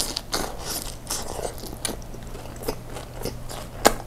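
Close-miked biting into and chewing a Turkish kebab wrap: crunching wrap and wet mouth sounds, a string of crisp crackles with the sharpest one near the end.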